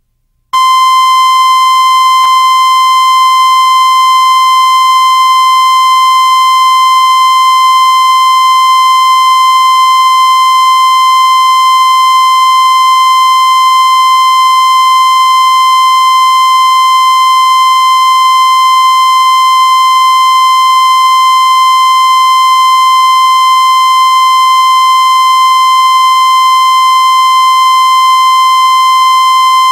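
Loud, steady 1 kHz line-up tone, the test tone laid down with colour bars at the head of a videotape, starting about half a second in.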